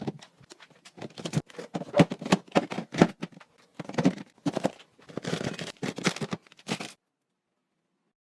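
Handling noises: a quick, irregular run of light knocks, taps and rustles as objects are picked up, moved and set down. The noises cut off abruptly about two-thirds of the way in.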